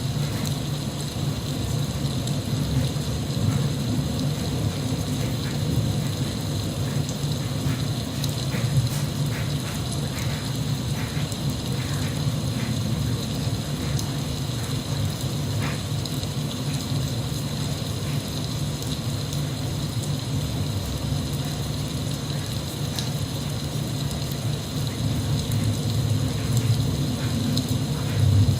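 Steady recorded rain with a deep low rumble under it and scattered patters of drops. The rumble swells near the end.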